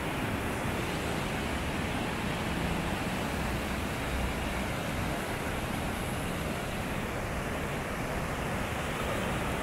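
Steady rushing of a mountain stream pouring through a small chute over granite ledges into a pool.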